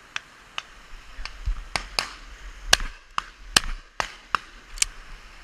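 Shotgun shots: about ten sharp reports in quick, irregular succession, some louder than others.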